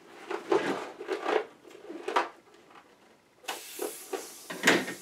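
Rubbery rustling and rubbing of a latex Batman cowl being handled as the inflated balloon inside it is worked loose. About three and a half seconds in comes a hiss of air rushing out of the balloon as it is let down, ending in a sharp snap near the end.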